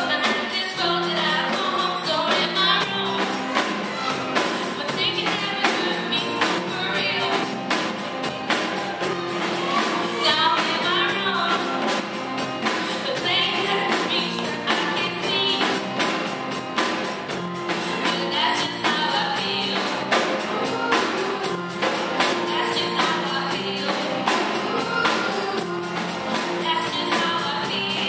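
Live band playing a song with singing over it, guitar and a steady beat.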